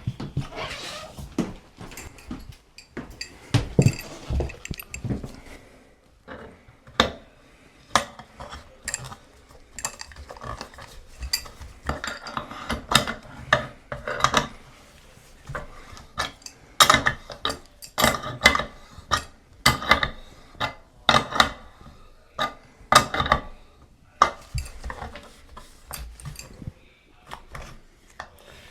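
Metal hand tools and plumbing parts clinking and knocking, with handling and scraping between the strikes, as a tub spout is re-taped and put back on.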